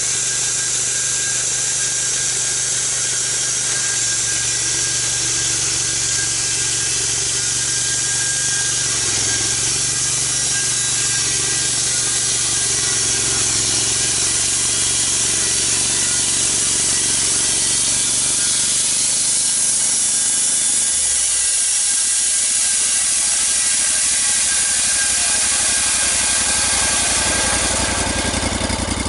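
Portable sawmill cutting through a log: a steady, loud hiss of the blade in the wood over an engine running under load. The low engine note thins out about two-thirds of the way through and returns near the end.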